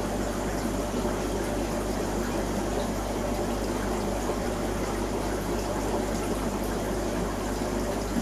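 Steady running and trickling of aquarium water, with a low steady hum underneath.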